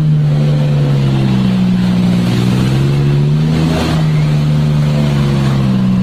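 Jeep Wrangler's engine running steadily under load as it drives through mud; its pitch sags slowly, then picks up again a little past halfway.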